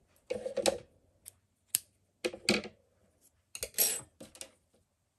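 Small clicks and clatters of hand work: a metal crochet hook is set down on a wooden tabletop and small tools are handled, in several short bursts with a sharp click near the middle and a cluster of clicks near the end.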